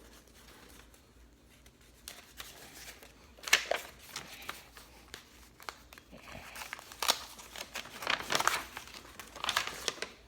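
Packaging being handled, crinkling and rustling in short irregular bursts, the loudest about a third of the way in and a cluster near the end.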